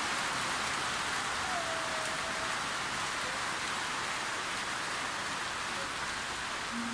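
Steady light rain falling while the sun shines, a sunshower: an even patter of drops.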